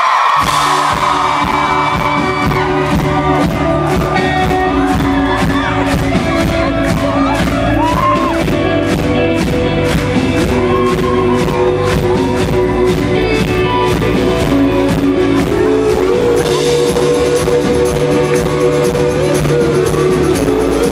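Rock band playing live: the full band comes in right at the start with drums keeping a steady beat under sustained electric guitars, and the cymbals turn brighter about sixteen seconds in.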